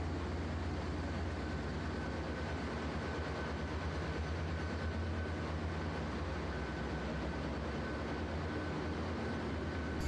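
Ship's engine-room machinery running: a steady low drone with a faint, thin high whine over it.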